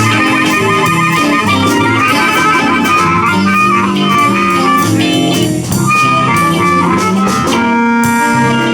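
Live electric blues band playing an instrumental passage, guitar to the fore over bass and drums, with some harmonica. Near the end it settles into long held notes.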